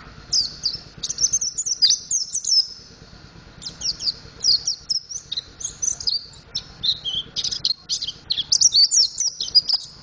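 Mountain white-eye (pleci montanus) singing as it learns its song: a rapid, loud twittering of high chirps and trills. It comes in two spells, with a brief break about three seconds in.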